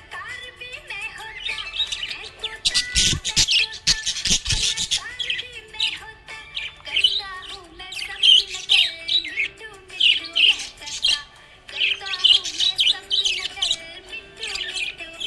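Budgerigars chirping and warbling in quick, high-pitched runs, with a louder, harsher patch of clicks and scratchy calls about three to four and a half seconds in.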